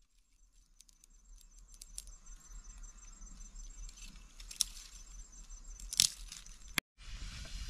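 Dry twigs and thin sticks snapping as they are broken by hand for firewood: a few sharp cracks, the loudest about six seconds in, with light rattling of the sticks between them.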